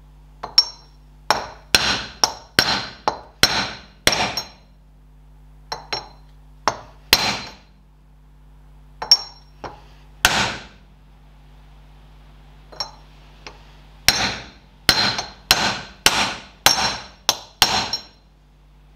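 Hammer tapping a metal drift to drive the outer race (cup) of a tapered roller bearing into a Ferguson TED20 front wheel hub. Sharp metallic taps with a ringing note come in bursts of a few strikes, separated by short pauses, as the race is worked down into its seat.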